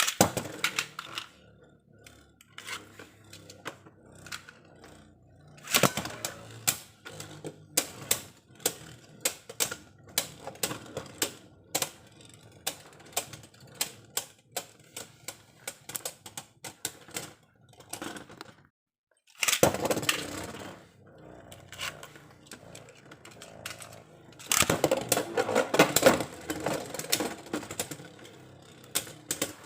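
Beyblade spinning tops battling: a steady run of sharp clicking knocks as they strike each other and the stadium. Dense flurries of hits come at the start, about six seconds in, around twenty seconds and again from about twenty-five to twenty-seven seconds.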